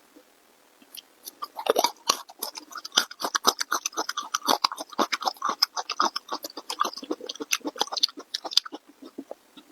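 Close-miked mukbang chewing: a person eating with a rapid, dense run of clicking mouth and chewing noises that starts about a second and a half in and thins out near the end.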